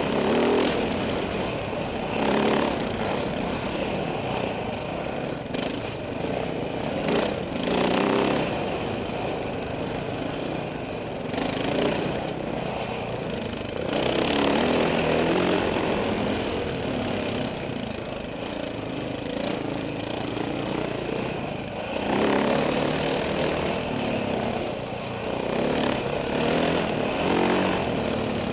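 Husaberg FE570 dirt bike's single-cylinder four-stroke engine under riding load, the throttle opening and closing in repeated loud surges every few seconds.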